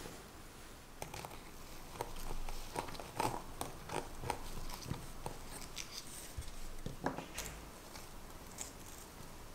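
Knife cutting through soft vanilla sponge cake inside a metal cake ring, with fingertips pressing the sponge into place: soft scratching and light, irregular ticks and taps.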